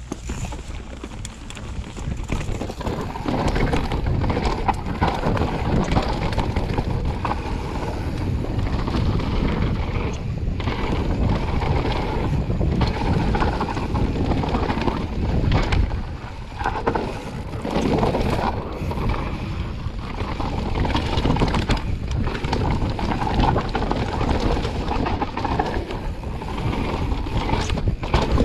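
Mountain bike running down a dirt trail: wind buffeting the microphone, with tyre noise and frequent irregular knocks and rattles from the bike going over bumps. It gets louder over the first few seconds.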